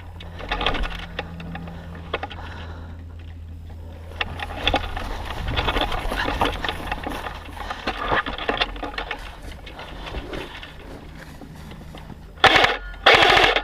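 Scuffing and rustling of movement, then two short full-auto bursts from an airsoft gun near the end, each a fast, even rattle of shots.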